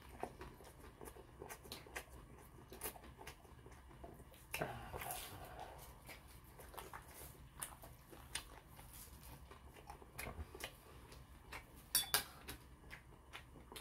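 Chopsticks clicking and clinking against ceramic bowls and side-dish plates while a man eats, with quieter chewing between the clicks. A noisier stretch comes about four and a half seconds in, and a couple of sharper clinks come about twelve seconds in.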